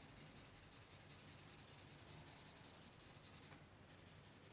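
Faint scratching of a blue felt-tip marker colouring in a small shape on paper, easing off briefly near the end. The marker writes poorly.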